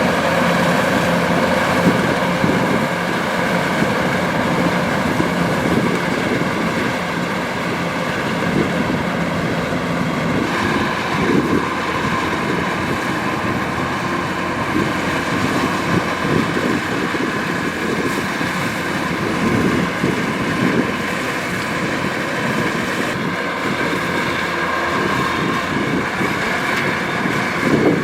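Kubota DC-105X combine harvester running steadily at work in a rice field: its diesel engine and threshing machinery make a continuous drone with steady high whining tones.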